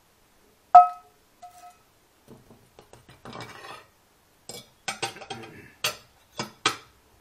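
Kitchen clatter: a sharp, ringing metal clink about a second in, then a string of knocks and clinks as a frying pan and cutlery are handled and set down.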